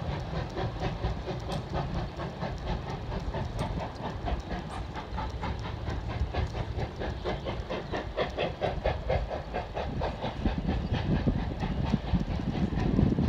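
Tweetsie Railroad No. 12's narrow-gauge steam train passing over a steel trestle: wheels clicking over the rail joints in a steady, rapid rhythm over a low rumble, with some steam hiss.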